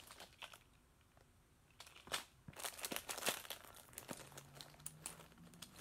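Plastic bags and packaging crinkling and rustling as costume jewelry is rummaged through by hand in a box, with irregular small clicks; the handling is lighter in the first second or so and busier after that.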